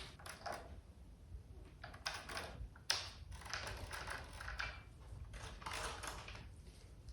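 Faint, irregular clicks and scrapes of light hand work at a bench, a few sharper ticks among them.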